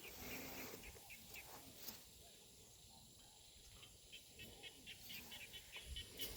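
Near silence outdoors, with faint short animal chirps repeating a few times a second, more of them in the second half.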